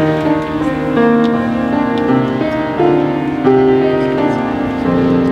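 Piano playing the introduction to a choir song, sustained chords changing roughly once a second.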